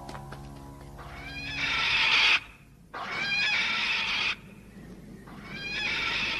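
Three drawn-out shrill animal cries, each swelling in loudness for about a second and a half and then cutting off abruptly. It is a cartoon creature sound effect.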